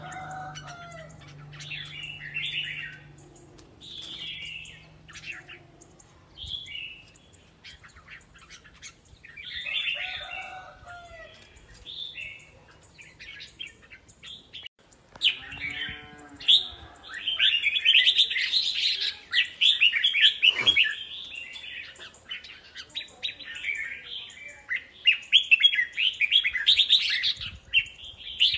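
Caged red-whiskered bulbuls singing against one another in competition. At first they give short warbled phrases every couple of seconds, then from about halfway through a dense, rapid run of chattering song.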